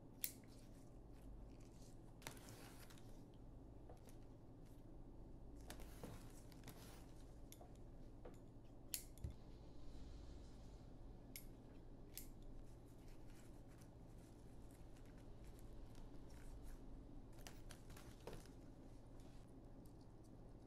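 Florist's scissors faintly snipping flower stems every few seconds, with soft handling noises in between over a low steady hum.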